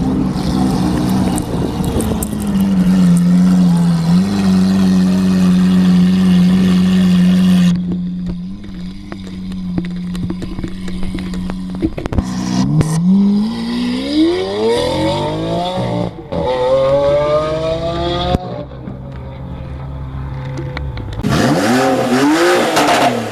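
Car engine and exhaust revving. A note is held at steady high revs for about eight seconds, then drops off. Around the middle the engine revs up twice in rising sweeps, and near the end it gives one short blip up and back down.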